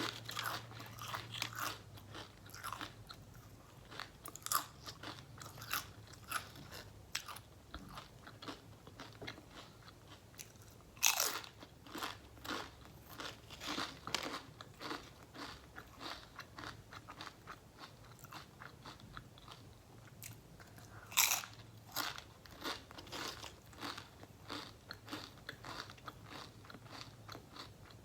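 Close-miked eating: steady chewing with crisp crunchy bites, two louder sharp bites about eleven and twenty-one seconds in.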